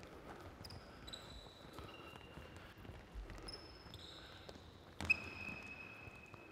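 Faint footsteps of players running across a sports-hall floor, with a few thin, high squeaks and one sharper thud about five seconds in.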